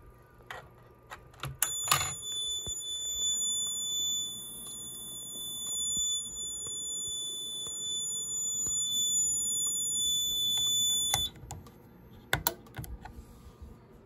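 Fire alarm on a Fire-Lite MS-4424B system sounding after a smoke detector is tripped: one steady high-pitched tone, continuous rather than pulsed, starting about two seconds in and cutting off abruptly about eleven seconds in. A few light clicks come before and after it.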